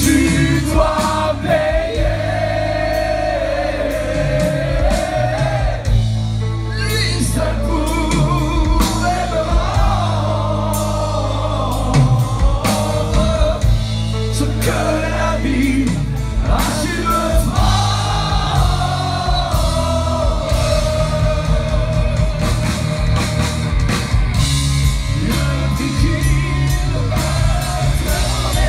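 Heavy metal band playing live, with sung vocals over electric guitars and drums. Several singers share the microphones.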